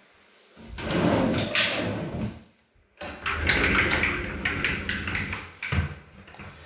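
Sliding cupboard door being pushed along its track, two long rolling runs with a short pause between them.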